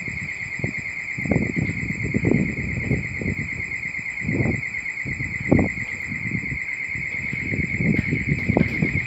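Irregular low rumbling gusts on the microphone, over a steady high warbling tone.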